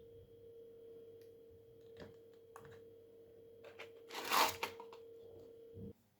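Quiet handling of small objects: a few light clicks and taps, and a brief rustling burst about four seconds in, over a faint steady hum that stops shortly before the end.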